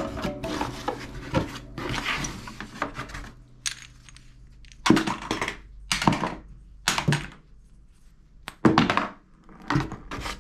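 Plastic toy parts and toy shotgun shells handled in a cardboard box. First a few seconds of rustling and fumbling, then a series of separate short clicks and knocks about a second apart as pieces are picked up and set down.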